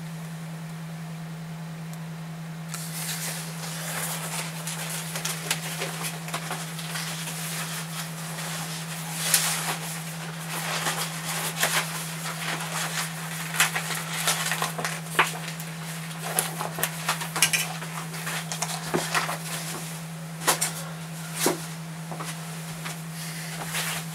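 Someone moving about a small room handling things: rustling and scattered clicks and knocks, starting a few seconds in, over a steady low electrical hum.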